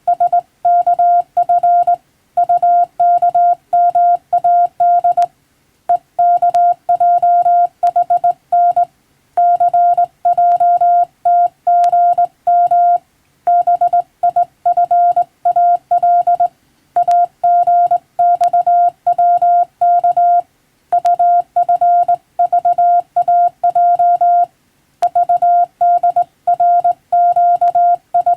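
Morse code sent with a telegraph key, heard as a single steady beep tone switched rapidly on and off into dots and dashes. The keying comes in runs broken by short pauses every few seconds, with a few faint clicks here and there.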